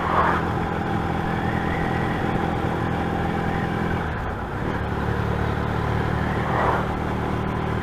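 Motorcycle engine running steadily while riding along, its note shifting about four seconds in.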